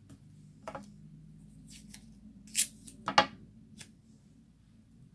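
Low-tack tape being pulled off its roll and broken into small pieces, heard as a few short noisy bursts, the two loudest about two and a half and three seconds in.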